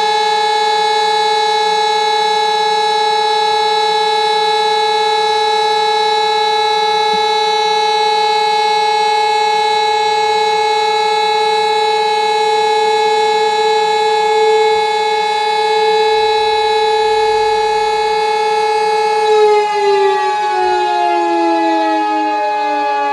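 Electromechanical fire-station siren sounding the call-out for the volunteer fire brigade: one loud, steady tone held at full pitch, then winding down with a falling pitch about 19 seconds in.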